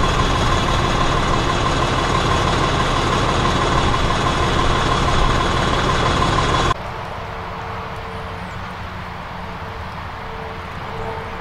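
An engine idling steadily with a constant whine over a low rumble, which stops abruptly about seven seconds in. What follows is quieter outdoor ambience with a faint on-and-off hum.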